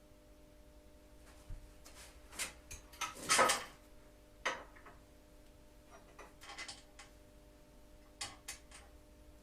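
Workshop handling noises from taking apart a motorcycle: a scatter of clicks, clinks and scrapes from tools and parts being moved. The loudest is a longer scrape about three seconds in, with smaller knocks later. A faint steady hum lies underneath.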